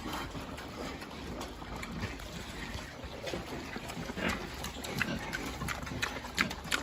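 Fattening pigs grunting while they eat, with wet chewing and slurping and many short sharp clicks that come thicker in the second half.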